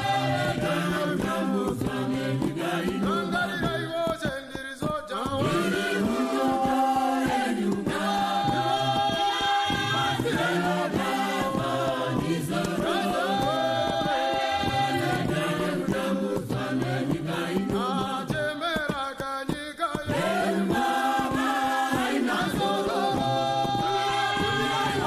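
A group of voices singing a Shona church song together in harmony, in a chant-like refrain whose phrases repeat every few seconds.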